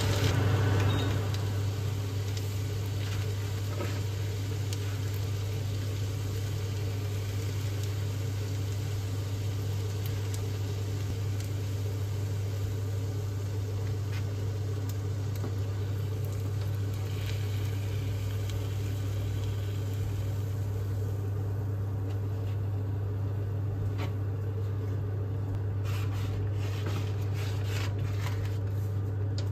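Steady low kitchen hum with a faint sizzle-like hiss over it that thins out about twenty seconds in; a few light clicks near the end.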